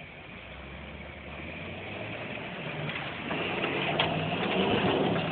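Chevrolet K5 Blazer's engine running, heard from inside the cab, getting steadily louder over the few seconds as the truck works through mud. There is a single sharp knock about four seconds in.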